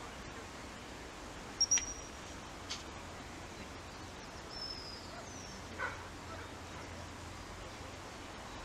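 Open-air field ambience with a steady low rumble. A few short, high-pitched chirps or pips cut through it, the loudest two in quick succession about a second and a half in, and two short falling ones a few seconds later.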